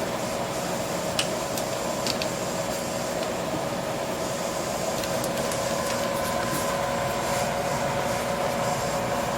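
Metal lathe running steadily with a constant machine hum, and a few faint clicks in the first couple of seconds.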